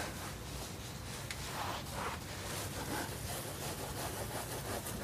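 Faint rustling of a microfiber towel wiping textured black plastic bumper trim clean, over a low steady hum.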